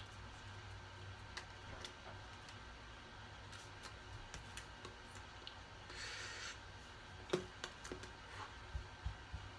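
Faint rustle and light taps of hands and clothing from a person signing, over a low room hum. A short hiss comes about six seconds in, and a sharp tap of the hands about seven seconds in is the loudest sound.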